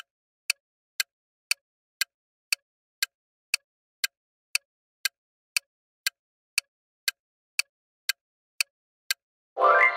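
Clock-tick sound effect keeping time with a quiz countdown timer, sharp even ticks two a second. Just before the end, a short, louder pitched sound effect sounds as the countdown runs out.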